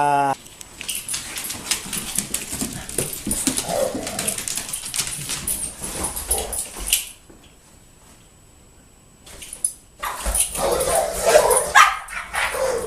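Two dogs play-fighting: a busy run of scuffling and irregular clicks mixed with short dog vocal sounds. It drops to a lull of about three seconds past the middle, then the scuffling and dog sounds pick up again.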